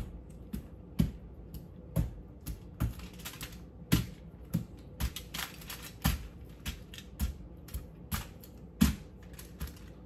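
A fork jabbing repeatedly into raw potatoes on a pan: an irregular run of sharp clicks and taps, about two to three a second.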